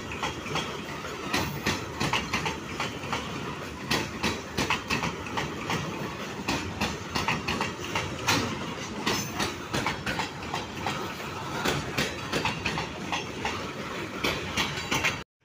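Goods train of steel hopper wagons rolling past close by: a steady rumble with a dense clickety-clack of wheels over rail joints and clanking of couplings and bogies. It cuts off abruptly near the end.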